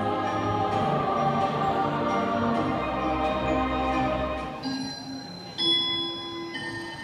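Soundtrack music of a sound-and-light show: a full, sustained choral and orchestral passage that fades about four and a half seconds in, giving way to a few sparse, high bell-like notes.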